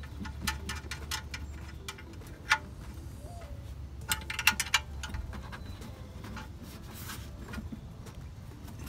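Metal wrench clicking and tapping on an oil pan drain plug as it is threaded back in and tightened, in scattered sharp clicks with a quick run of them about four seconds in.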